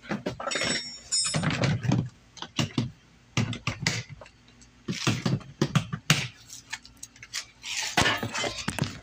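Irregular rustling, knocks and clinks of camping gear being handled and packed into a bag.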